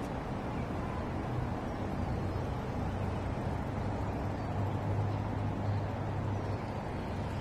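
Steady low rumble of city traffic, with a low engine drone that swells about four seconds in and eases off near the end.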